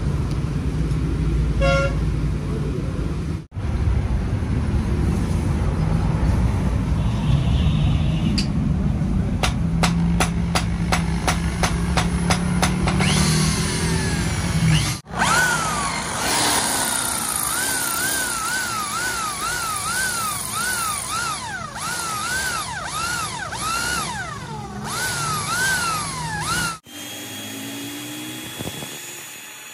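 Workshop power tools working steel, in several short clips cut together. In one clip there are rapid clicks, and in another a whine rises and falls about once a second.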